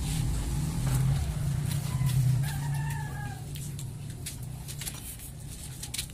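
A rooster crows once, a call of about a second a few seconds in. Under it runs a steady low hum, with scattered light clicks and knocks as a metal well pipe is handled.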